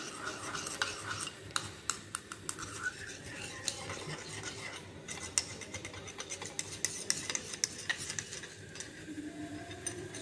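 Glass rod stirring a thickening cold-cream emulsion in a porcelain dish, with frequent irregular light clicks and scrapes of the rod against the porcelain.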